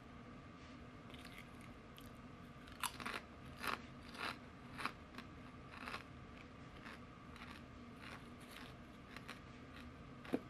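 Potato chips being bitten and chewed close to the microphone: a run of crisp crunches about three to six seconds in, then fainter chewing, and one sharp crack near the end.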